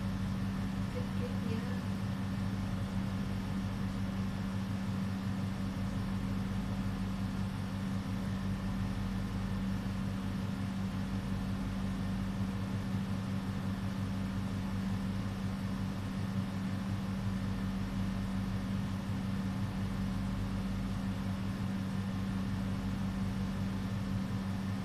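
A steady low hum, even in level, with no other clear event.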